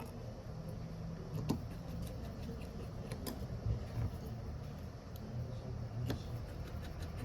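A few light, sharp clicks and taps of small tools and parts being handled during phone repair work, spaced a second or two apart, over a low steady hum.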